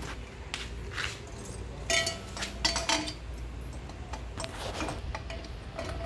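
Steel motorcycle exhaust elbow clinking and knocking against the engine and frame as it is offered up to the exhaust port, a few light metallic taps with a brief ring about two seconds in.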